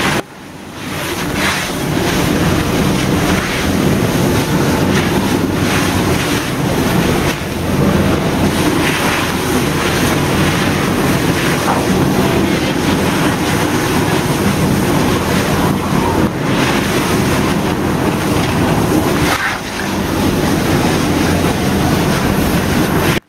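Fire hose stream spraying water onto a burning car, a loud steady rushing hiss of water hitting the car body as the flames are knocked down to steam. It dips briefly just after the start and again near the end, then stops abruptly.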